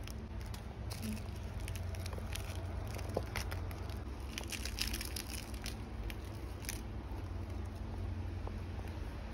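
Crisp nori wrapper of an onigiri rice ball crackling and crunching as it is handled and bitten, in scattered faint crackles. Under it runs the steady low hum of an electric fan.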